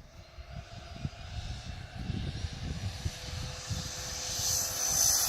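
Twin electric ducted fans of a scratch-built RC Boeing 777 at takeoff power, a jet-like whine with a steady high tone that grows steadily louder during the takeoff run, over a low irregular thumping rumble.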